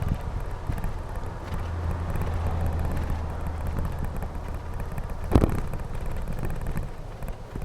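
Road and wind noise while riding, with a steady low hum for a few seconds and one sharp knock about five seconds in.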